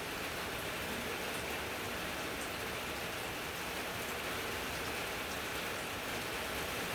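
Steady rain from Hurricane Zeta falling: an even hiss with faint scattered drop ticks, during a lull in the wind.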